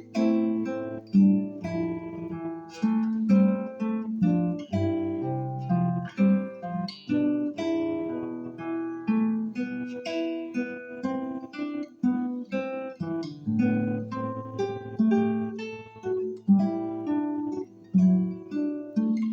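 Solo acoustic guitar, fingerpicked: a continuous run of single plucked notes ringing over lower bass notes.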